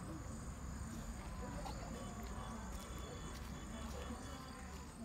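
Quiet outdoor ambience: a low steady rumble with a thin high hum and a few faint chirps and ticks.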